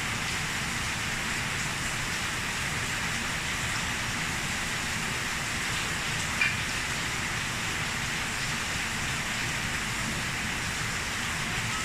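Steady rain falling, an even hiss over a low hum, with one brief click about halfway through.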